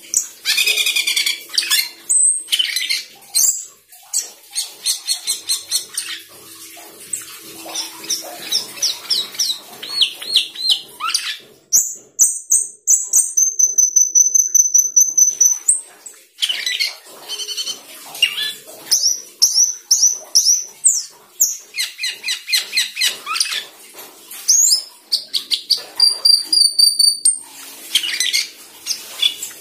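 Asian glossy starling singing a long, varied song: runs of quick, repeated high notes, broken by a steady high whistle held for about three seconds some twelve seconds in.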